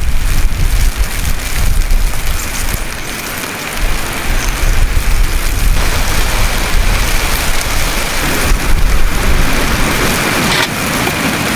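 Snowstorm sounds: a dense, steady hiss of falling precipitation with a heavy low rumble of wind, continuous throughout.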